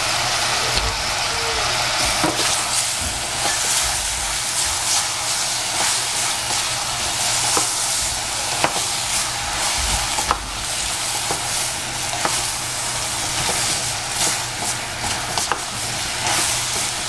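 Sliced squash and shiitake mushrooms hissing as they cook in a stainless steel saucepan, stirred with a wooden spoon that knocks against the pan several times. A steady low hum runs underneath.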